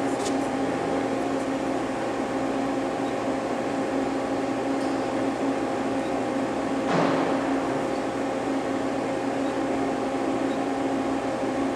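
Steady hum of an idling Okuma LNC8 Cadet CNC lathe, its hydraulic unit running with a few constant tones over an even noise. A brief rustle comes about seven seconds in.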